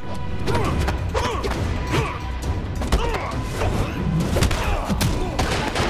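Cartoon fight sound effects: a rapid series of thuds and impacts with short grunts, over background music.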